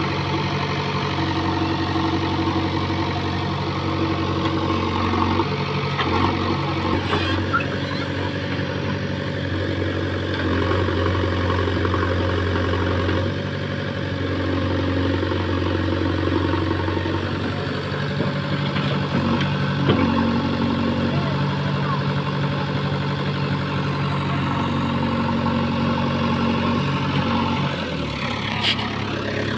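JCB 3DX backhoe loader's diesel engine running as the machine works. Its note shifts up and down every few seconds as the load changes.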